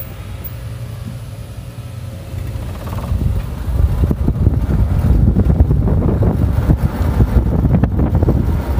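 Golf cart riding along, with wind buffeting the microphone, which grows louder and rougher about three seconds in.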